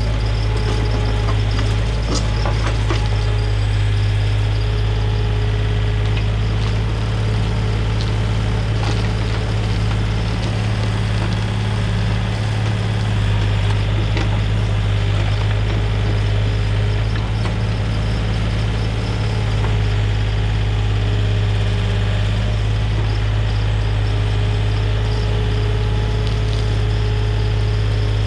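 Komatsu mini excavator's diesel engine running steadily while the machine backfills a trench, with a few faint clicks over the engine hum.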